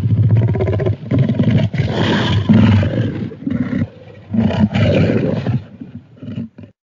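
Tyrannosaurus rex roar sound effect: a run of loud, deep, rough roars, one after another with short breaks, tailing off into a few short grunts and stopping just before the end.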